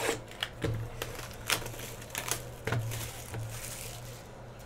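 A sealed cardboard trading-card hobby box being unwrapped and opened: the plastic wrap crinkles and the cardboard clicks in sharp, irregular snaps. A steady low hum runs underneath.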